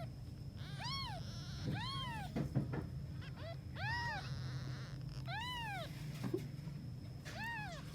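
Newborn kittens, a day old, mewing: about five short, high calls, each rising and then falling in pitch, a second or two apart. They are crying from hunger while their mother is away.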